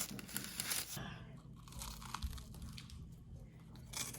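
Rustling and crinkling handling noise, densest in the first second, then fainter scattered clicks with a short crackle near the end.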